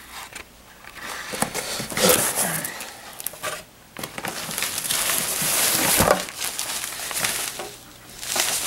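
A cardboard box being opened and a fabric-covered ankle weight pulled out of it: flaps scraping and packaging rustling in uneven bouts, with a short lull about three and a half seconds in.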